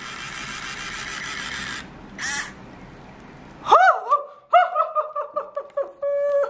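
A 3D pen's small filament-feed motor whirring steadily as it extrudes, cutting off about two seconds in. From about the middle, a person laughs excitedly in short high-pitched bursts, ending on a held note.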